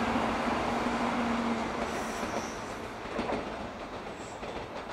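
N700-series Shinkansen train running through the station at speed and pulling away: a loud rush of wheels and air with a steady low hum that stops about two seconds in, the whole sound slowly fading as the train recedes.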